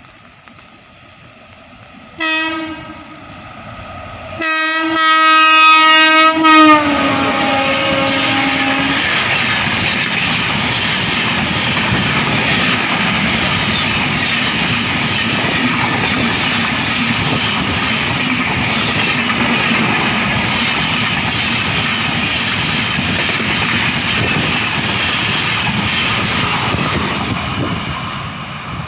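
WAP7 electric locomotive's horn sounding a short blast, then a longer blast whose pitch drops as the engine goes past. The passenger train then runs by at speed, wheels clattering over the rails, until it fades near the end.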